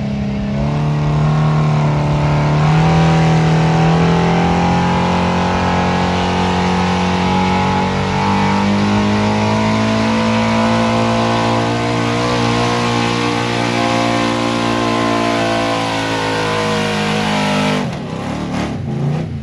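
A 1978–79 Ford F-series 4x4 pickup's engine held wide open, pulling a weight-transfer sled down a dirt track. The revs climb over the first few seconds, then hold high and steady under heavy load as the sled bogs it down. The engine drops off sharply near the end as the throttle is lifted at the end of the pull.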